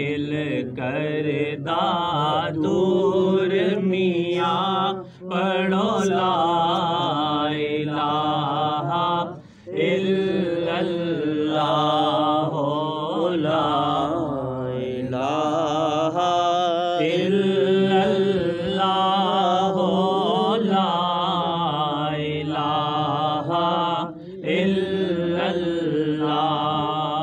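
Devotional naat chanted by voice, a melodic chant that runs on with short breaks about 5 and 9.5 seconds in.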